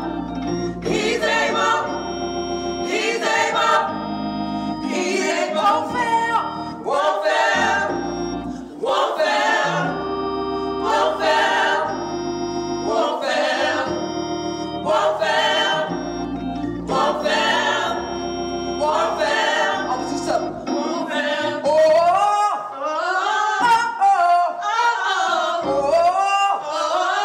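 Gospel praise team singing together over backing music of held chords and a regular beat. About 22 seconds in the backing drops away and the voices carry on nearly alone.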